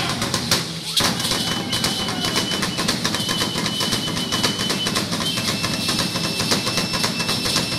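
Percussion-heavy show music: fast, dense drumming, with a high piping tone held for a second or two several times over it. A sharp hit comes after a brief drop about a second in.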